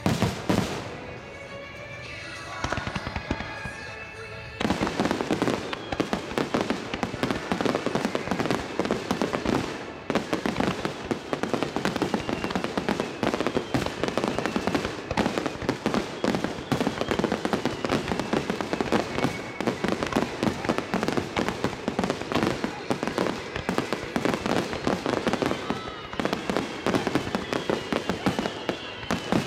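Starmine fireworks barrage: one loud bang at the start, then, about four and a half seconds in, a dense, unbroken stream of rapid bangs and crackling that keeps going without a pause. Music is heard behind the first few seconds.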